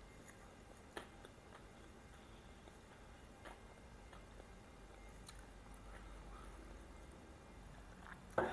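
Quiet chewing of a mouthful of grilled pita wrap, with a few faint mouth clicks, and a short, louder mouth sound near the end.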